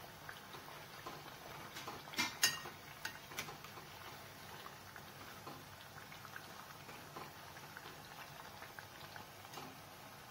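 Whole-wheat mathri deep-frying in oil in an aluminium kadhai, a faint steady sizzle and crackle of bubbling oil. A few light clicks about two to three seconds in, from the slotted metal spoon touching the pan.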